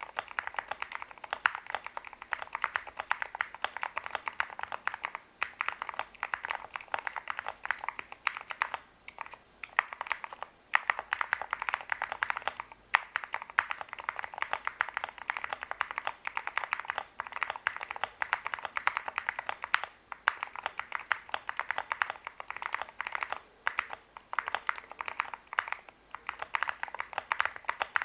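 Fast, continuous typing on a Monsgeek M1 mechanical keyboard with Gateron Black Ink V2 linear switches and Drop MT3 keycaps. It is a dense run of keystrokes with a few short pauses, in the sound the builder calls creamy, marbly and thocky.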